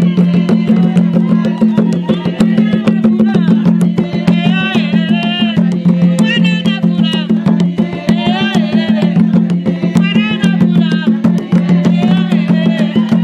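Traditional Zambian drumming: wooden hand drums played in a fast, dense rhythm, with a woman's voice singing over it in wavering, held notes.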